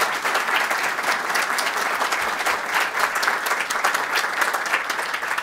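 Audience applauding, with many hands clapping steadily at the end of a speech.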